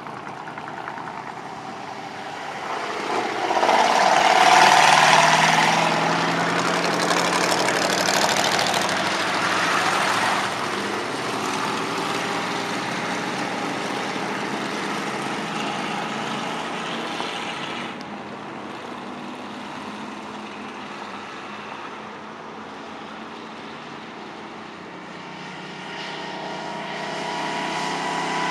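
Dirt-track stock car's engine running hard on practice laps, loudest as the car passes close about four seconds in, dropping as it goes away down the far side, and building again with a rising engine note near the end.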